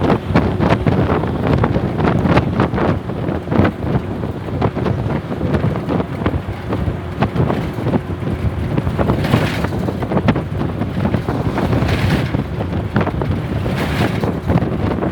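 Riding in a moving Tamil Nadu government bus: a steady drone of engine and road noise with wind buffeting the microphone and frequent rattles. Three short hissing rushes come in the second half.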